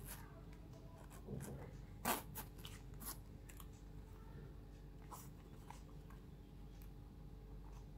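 Metal zip of a small leather zip-around card wallet being pulled open, followed by faint clicks and rustles as the leather wallet is handled and spread open. The loudest click comes about two seconds in.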